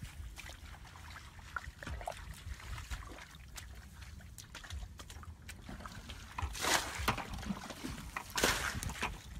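Footsteps squelching through wet mud and tall grass, with small rustles and clicks throughout and two louder swishes of grass brushing past, about two-thirds of the way through and again near the end.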